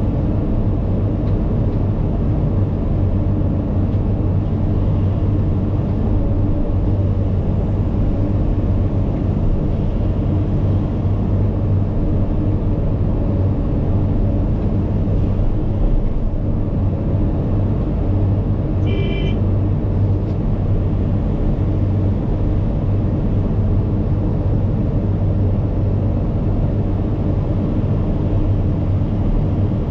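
Cat 395 excavator's C18 diesel engine running steadily while bench loading, a low, unbroken drone. A brief high-pitched tone sounds about two-thirds of the way in.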